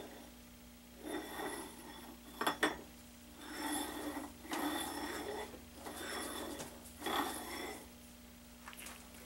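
A long metal bar being set onto and slid along an aluminium fixture by hand: metal scraping and clinking in about five short bursts, with two sharp knocks about two and a half seconds in.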